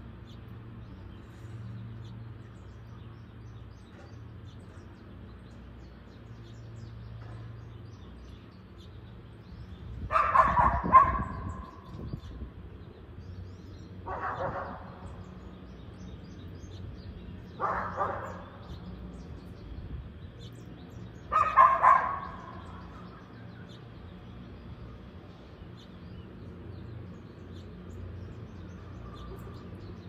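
A dog barks four times, a few seconds apart, with the first and last barks loudest. Faint bird chirps and a low steady hum sit underneath.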